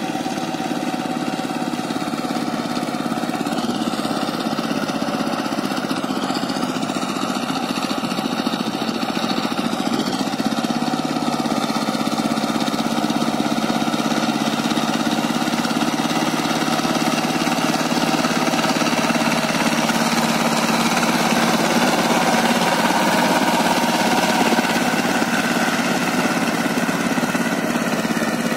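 Mini power tiller's engine running steadily as the tiller's rotavator churns through flooded paddy mud, growing louder as the machine comes closer.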